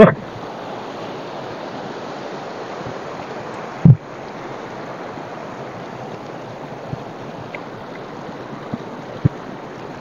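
Shallow mountain river rushing over stones: a steady hiss of running water, with a single brief thump about four seconds in.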